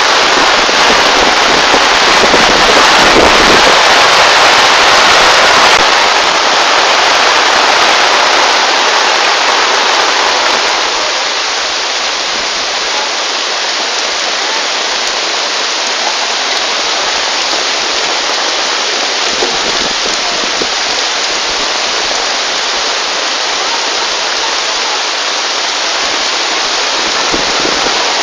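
Heavy rain pouring down in a steady loud hiss, with floodwater running through the street. It drops a little in loudness about eleven seconds in.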